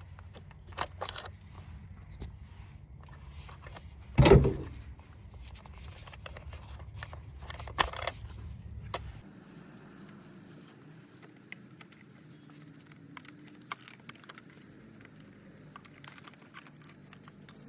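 Plastic retaining clips on a BMW engine-bay cover being prised up with a flathead screwdriver and pulled out: scattered small clicks and rattles, with one loud knock about four seconds in.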